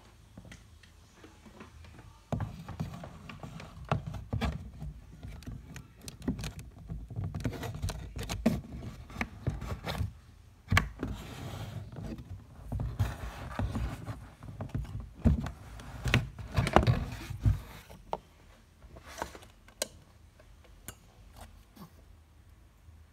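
Kitten moving about in a cardboard box: rustling, scratching and bumps against the cardboard and blanket close to the microphone. A low rumble runs from about two seconds in until about five seconds before the end, after which only light scratches and clicks remain.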